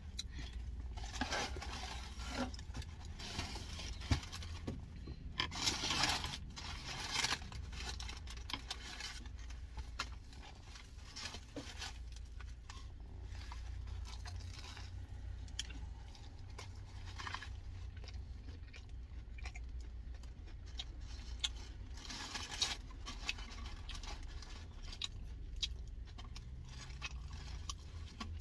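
Food packaging being handled, with irregular rustling, scraping and crinkling, over a steady low hum.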